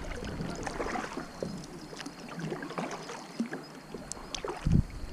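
Small splashes and trickling water around a kayak as it moves on the river, with a paddle in the water. Near the end there is a single short, low thump.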